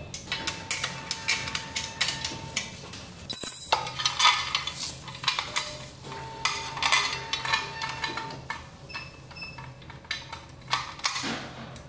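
Metal spin-bike parts and hand tools clicking and clinking irregularly as the bike frame is assembled, with a louder clatter about three and a half seconds in.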